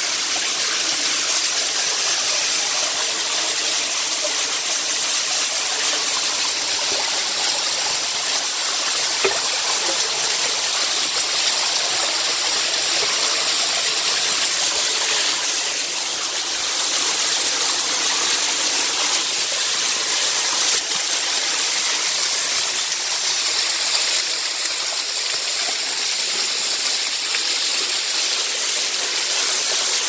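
Steady rush of a small waterfall and the stream water running over rock.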